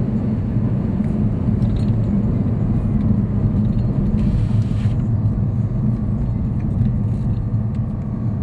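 Porsche Panamera Turbo's twin-turbo V8 running through Fabspeed downpipes with 200-cell catalytic converters, an X-pipe resonator delete and stock rear mufflers, giving a steady low exhaust rumble at an even engine speed.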